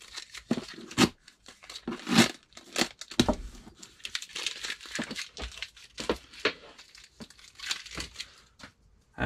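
An old paper shipping label being peeled and torn off a taped cardboard box in irregular crackling rips, the paper crinkling as it comes away. The sound dies away just before the end.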